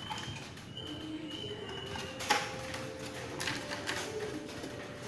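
Light clicks and taps of a plastic RC toy jeep's body and wheels being handled and turned in the hands, with one sharp click about two seconds in.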